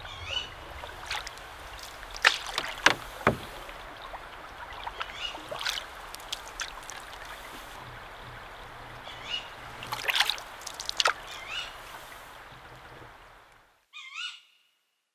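Campfire crackling: a steady hiss with several sharp pops at irregular intervals, and a few short chirping calls. The sound fades away near the end.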